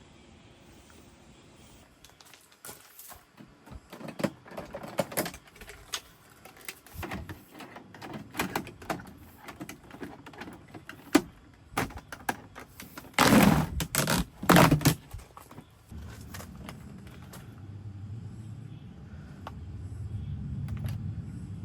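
Irregular clicks, knocks and rattles of equipment being handled, the loudest a few sharp knocks just past the middle. After that a steady low hum starts and grows a little louder.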